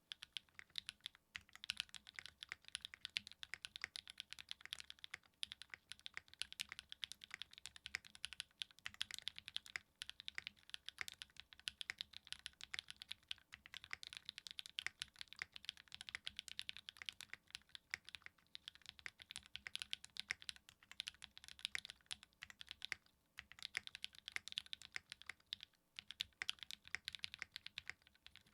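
Fast, steady typing on a Graystudio Think6.5 custom mechanical keyboard with linear Cream Cherry switches (a Cherry MX Black and NovelKeys Kailh Cream hybrid), an FR4 plate and GMK keycaps. Keystrokes come in a dense run, with a few brief pauses.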